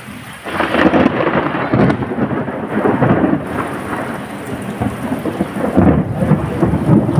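Heavy tropical rainstorm: steady rain, then about half a second in a loud rumble of thunder breaks in and keeps rolling.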